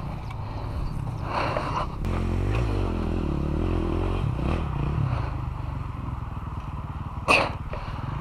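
Several enduro dirt bike engines idling together, steady and low. A scraping clatter comes about one and a half seconds in, and a sharp knock near the end.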